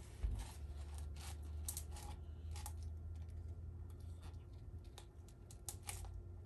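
Plastic spoon stirring sticky candy gloop in a plastic cup, scraping and clicking against the cup's sides in irregular strokes. A steady low hum runs underneath.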